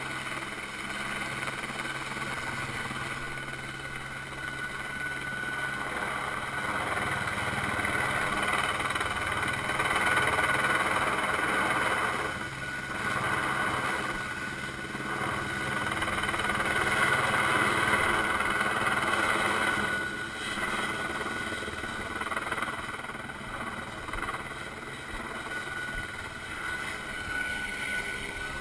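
Bell 206 JetRanger helicopter hovering overhead: a steady turbine whine over the rotor and engine noise, swelling and easing slightly in loudness.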